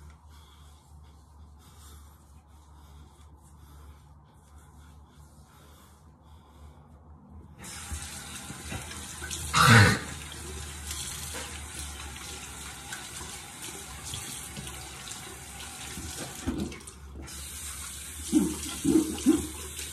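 Bathroom sink tap turned on about seven seconds in, water running steadily into the basin, with splashing as water is scooped up to rinse cleanser off the face. There is a loud splash soon after the tap opens, and a few more splashes near the end.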